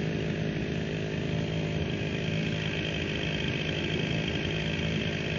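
Two-stroke chainsaw engine running steadily, holding an even pitch.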